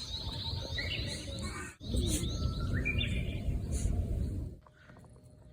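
Japanese bush warbler (uguisu) singing: twice, a held whistled note that leaps up into a quick higher phrase. Under it runs a low rumble that cuts off near the end.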